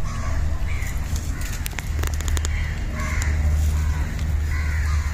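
Short animal calls repeating about once a second over a steady low rumble, with a few sharp clicks about two seconds in.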